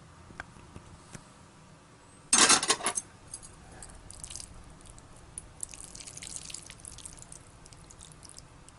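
A short splash of water about two seconds in, then scattered drips and small crackles.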